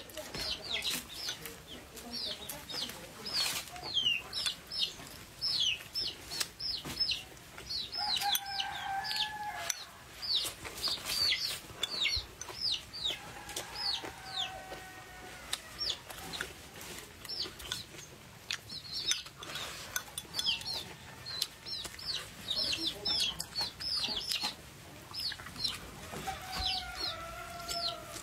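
Chicks peeping constantly: many quick, high cheeps, each falling in pitch, several a second. A lower, drawn-out call sounds three times. Close by are chewing and the click of chopsticks against a ceramic bowl.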